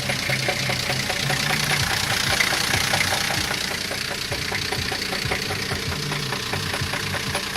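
Car engine idling with a fast, regular knock from inside the engine. The men take the knock for a bearing and fear the bearing shell will spin.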